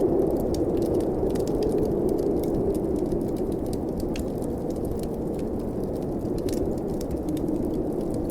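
Steady low rushing of storm wind, with frequent small pops and crackles from a wood fire in a fireplace.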